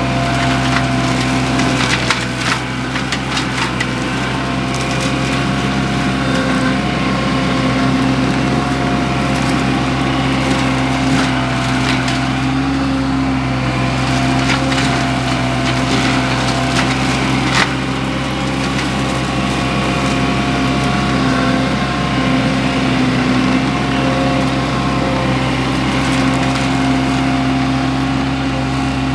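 Baumalight MS530M forestry mulcher on a Wacker Neuson SM120 mini skid steer shredding wood: irregular cracking and splintering over the steady drone of the machine's engine.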